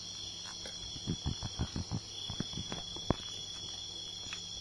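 Steady high-pitched chirring of insects, with a quick run of light clicks and taps about a second in and one sharper click about three seconds in.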